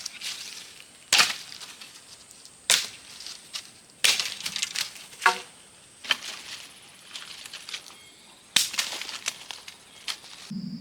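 A series of sharp knocks and cracks, about six strong ones a second or two apart, each trailing off in a short crackle, with fainter knocks between them.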